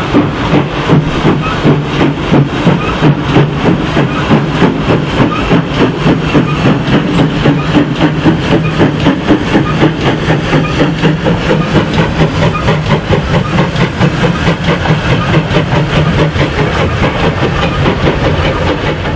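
Small steam tank engine working hard, its chimney exhaust beating sharply about three times a second, with steam hiss; the beats fade near the end as the train moves away.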